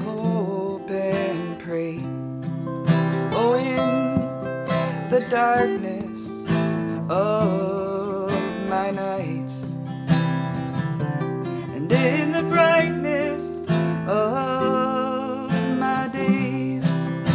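Acoustic guitar music with no words: strummed chords under a lead melody whose notes slide up in pitch and waver.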